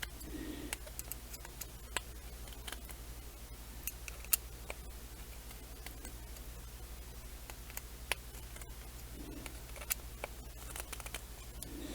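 Small scattered clicks and ticks of a hex driver tightening a small screw into a carbon-fibre quadcopter frame, done gently so as not to strip it, over a steady low hum.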